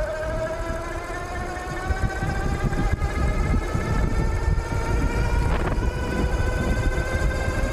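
48 V 1000 W mid-drive e-bike motor whining as the bike accelerates, its pitch rising slowly with speed. Wind buffets the microphone underneath.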